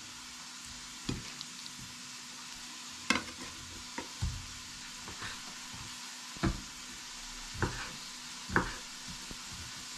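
Kitchen knife slicing raw chicken livers on a wooden cutting board: about seven short knocks at uneven intervals as the blade meets the board. Beneath them, a steady hiss of onion frying in oil.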